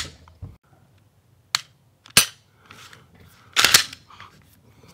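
A Gen 5 Glock 19 fitted with a HYVE Monarch trigger being dry-fired and its slide worked: separate sharp clicks of the trigger breaking and resetting, with a longer, louder clatter a little past halfway.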